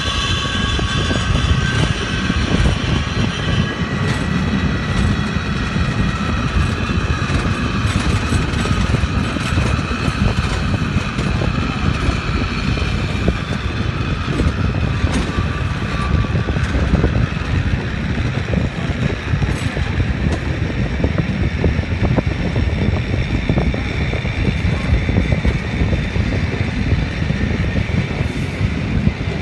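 Water-powered funicular cliff railway car running down its steep track: a steady rumble of wheels on the rails with scattered clicks. A high squeal in the first few seconds fades away.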